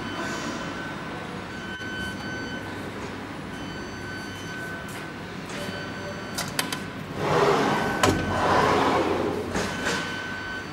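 Steady machine-shop hum with a high tone switching on and off. About six and a half seconds in come a few clicks, then a louder rolling rush lasting about three seconds as the sliding glass door of the CNC milling machine's enclosure is opened.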